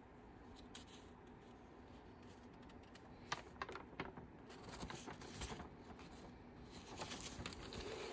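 Pages of a spiral-bound sketchbook being turned by hand: paper rustling and flapping with a few sharp clicks, starting about three seconds in after a quiet stretch.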